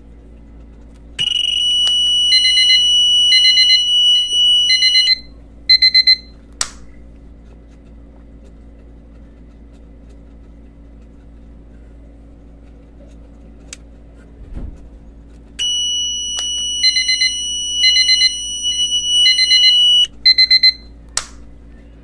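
The buzzer of a homemade pendulum earthquake alarm sounding twice, about a second in and again about fifteen seconds in, each time for about four seconds: a steady high tone with a beep pulsing about once a second over it, then cut off. It is set off when the disturbed pendulum touches the magnet contact and closes the circuit, and a few sharp clicks follow each bout.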